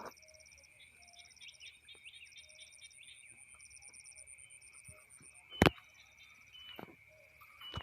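Birds chirping over a steady high insect-like trill and drone; one sharp snap or knock stands out a little over halfway through.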